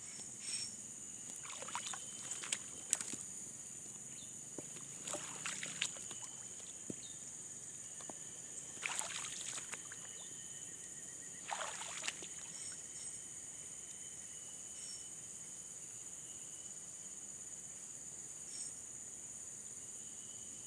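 Steady high-pitched buzzing of an outdoor insect chorus, with a few brief swishing noises now and then, the clearest about nine and twelve seconds in.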